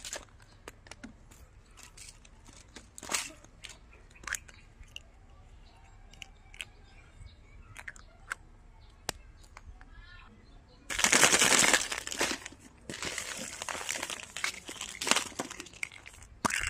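Hard plastic toy-egg candy capsules clicking and snapping as they are handled and pried open, with scattered sharp clicks at first. Loud crinkling of plastic packaging for about a second past the middle, then more rustling and a sharp snap near the end.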